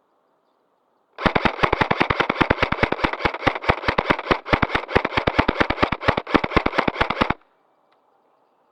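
Airsoft gun firing on full auto: a rapid, even string of shots, about nine a second, starting about a second in and running for about six seconds before stopping abruptly.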